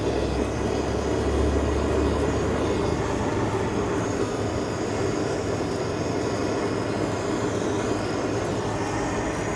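Handheld butane kitchen blowtorch flame running with a steady hiss as it sears the surface of pieces of monkfish to bring out their aroma.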